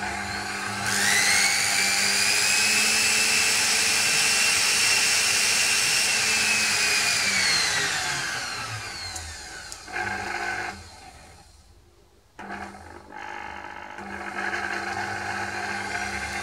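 Small fruit-juicer electric motor run through a drill's variable-speed trigger switch: about a second in it spins up with a rising whine, runs at high speed for several seconds, then winds down. After a short burst and a moment of near quiet it is started again in brief pulses and then runs steadily at a lower speed, the speed set by how far the triac trigger is pressed.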